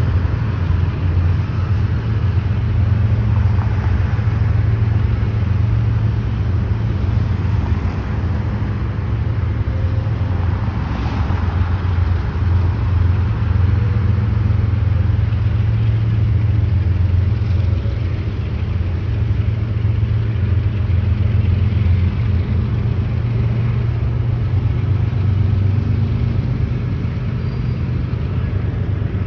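Steady low rumble of a car on the move: engine and tyre noise heard from inside the car.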